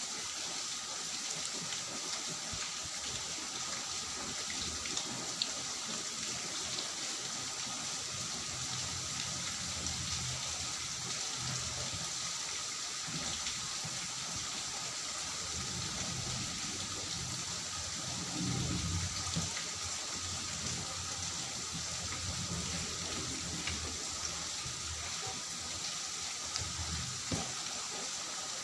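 Eating sounds: fingers mixing and squishing rice with pumpkin curry on a steel plate, with soft chewing, over a steady background hiss.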